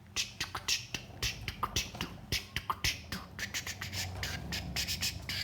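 A person making rapid, uneven clicking and hissing mouth sounds, like beatboxing, to imitate a toy tractor's engine. A faint low hum joins about four seconds in.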